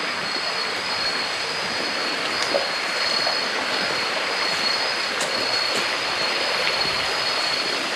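Stream water flowing, a steady even rushing, with a thin steady high-pitched tone above it.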